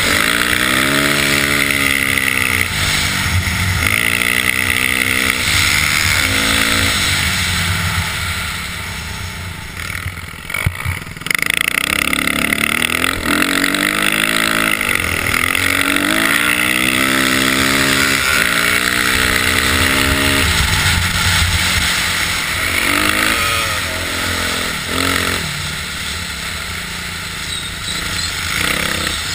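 Dirt bike engine heard from the bike itself, revving hard with its pitch climbing in repeated rising sweeps as it shifts up. The throttle eases off about a third of the way in, with a single knock, before it pulls hard again.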